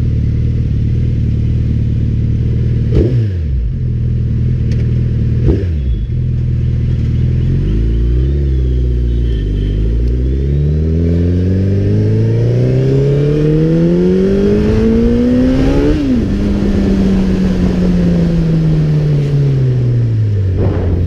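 Suzuki Hayabusa's inline-four engine under way, heard from on the bike: two quick shifts early on, then a long, steady climb in revs for about eight seconds, peaking and falling away slowly as the throttle is closed.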